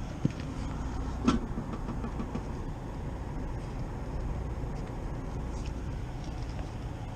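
Walk-in cooler condensing unit running on its fan alone, a steady low drone, while its dead compressor stays silent. Two short knocks cut through, about a quarter second in and just over a second in, the second louder.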